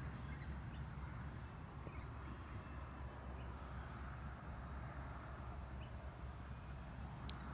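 Quiet outdoor background: a steady low rumble with a few faint, short high chirps scattered through it, and one sharp click just before the end.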